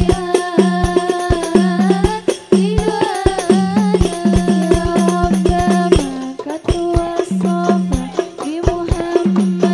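Hadroh ensemble performing sholawat: women's voices singing a melismatic devotional melody over a steady rhythm of rebana frame drums and other hand drums.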